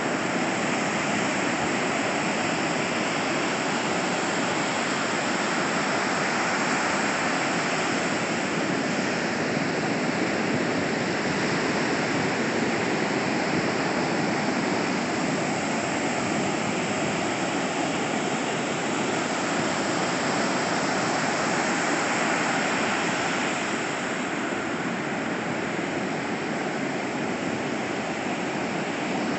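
Ocean waves breaking and washing on a beach: a steady rush of surf that eases slightly near the end.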